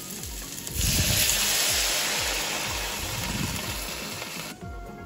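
Pineapple-juice marinade hissing and sizzling as it is poured into a hot pan of fried pork belly, garlic, onion and ginger. The hiss starts about a second in, eases slowly, and cuts off suddenly near the end.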